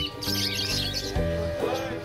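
Background music with a steady run of held chords and changing bass notes, with the quick high chirps and chatter of caged pet birds over it.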